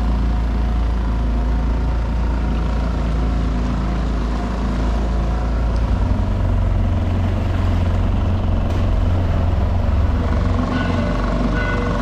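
A dinghy's outboard motor running steadily under way, a low drone that grows stronger and rougher about halfway through.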